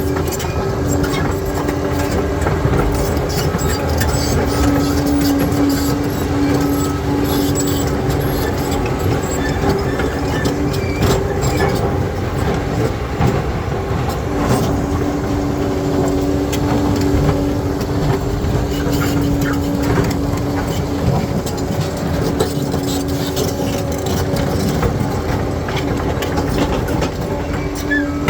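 Bulldozer's diesel engine running steadily under load, its pitch holding and fading back at times, while steel tracks clank and rocks knock and crunch as it works over stony ground.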